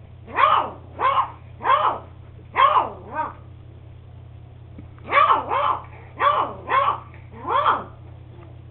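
An eight-week-old beagle puppy barking: about ten short, high barks, each rising and falling in pitch, in two runs of five with a pause of about two seconds between them.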